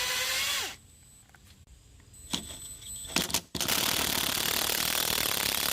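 Cordless drill with a Torx bit running on screws: its motor whine falls away and stops within the first second, a few sharp clicks follow, and from about three and a half seconds comes a loud, fast, steady clatter.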